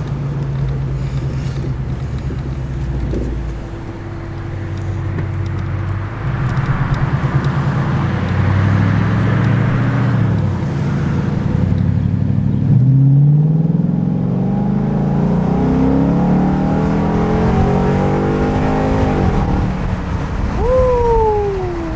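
2013 Ford Mustang's 5.0 V8, running a freshly loaded tune, accelerating hard: the revs climb, drop at an upshift about ten seconds in, then climb again through the next gear. Near the end a separate whine starts suddenly and falls in pitch.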